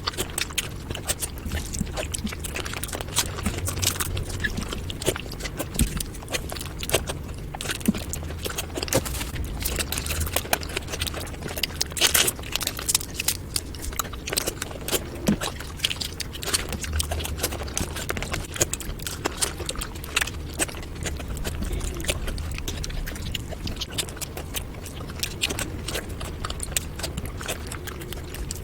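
Sped-up eating sounds from a meal of panta bhat (rice soaked in water): a dense, irregular run of quick clicks and smacks from chewing and handling the wet rice, over a low hum.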